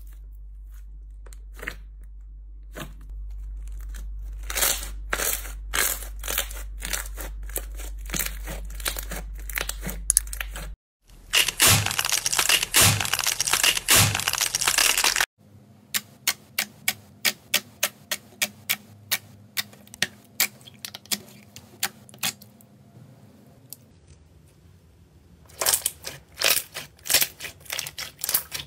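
Slime being pressed and squeezed by hand: a run of sharp clicks and pops, broken midway by a few seconds of dense, loud crackling as a crisp, glitter-coated slime shell is crushed in the fist.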